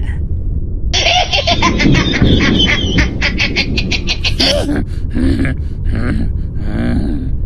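A high-pitched, cartoonish creature cackle: a rapid run of about eight to ten short pulses a second for a couple of seconds, then four shorter bursts of laughter. A steady low rumble runs underneath.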